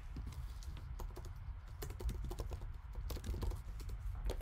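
Typing on a computer keyboard: quick, irregular key clicks.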